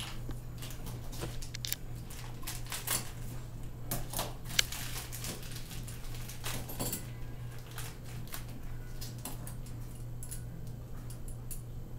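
Small plastic toy parts and packaging being handled: irregular clicks, taps and short rustles, busiest in the middle, over a steady low hum.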